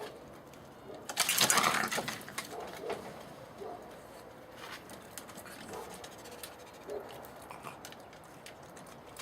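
A fox gives one harsh, rasping cry about a second in, lasting about a second, followed by a few faint, soft short calls.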